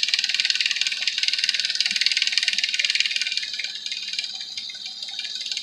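Nissan Maxima's 3.5-litre V6 idling with a fast, steady lifter tick. A Motor Medic flush is in the oil to try to quiet the excessive lifter noise. The ticking gets a little quieter about two thirds of the way through.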